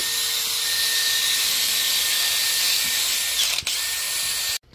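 Cordless drill spinning a wire wheel against a cast-iron small-block Chevy engine block, a steady high whirring scrape as it cleans the metal. It dips for an instant about three and a half seconds in and cuts off sharply just before the end.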